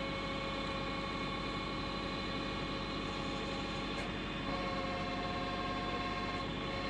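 A heavy forestry machine's engine running steadily, a constant drone with several steady hum tones.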